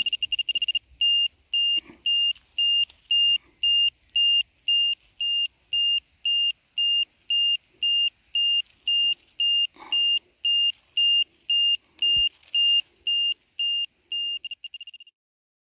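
Automess 6150 AD 6/E radiation dose-rate meter beeping in a high-pitched tone, signalling raised radiation at the spot as its reading climbs. The beeps run almost together for the first second, then come evenly about twice a second, and break up into quicker ticks before stopping near the end.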